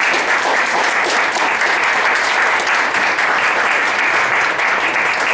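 Audience applauding steadily, a dense run of many overlapping hand claps.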